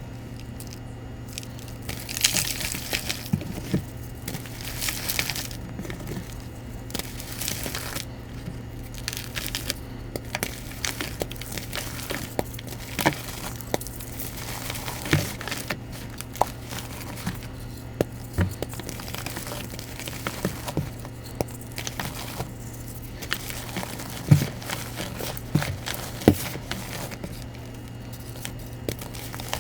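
Soft, dusty reformed blocks of Bon Ami powder cleanser crushed and crumbled by hand, giving irregular soft crunches and crackles with powder pouring off.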